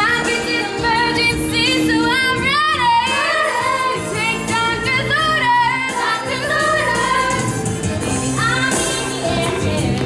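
Musical-theatre song with several voices singing, a female voice prominent, over continuous instrumental accompaniment.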